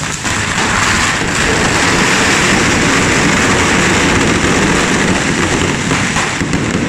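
Several carretilles, the handheld fountain fireworks of a Catalan devil troupe, spraying sparks at once: a loud, steady rushing hiss.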